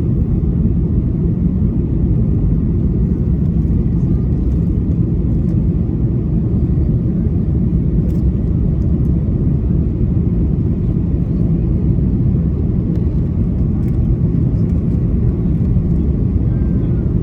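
Steady low roar inside an Airbus A330-300 passenger cabin during the approach: airflow over the fuselage mixed with the hum of its Rolls-Royce Trent 700 engines.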